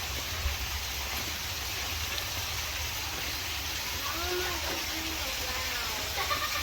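Steady hiss of rain falling, with a faint voice about four seconds in.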